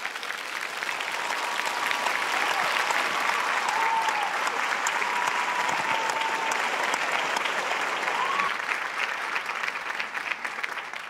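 Theatre audience applauding, a dense crowd of clapping hands that swells over the first couple of seconds and fades near the end.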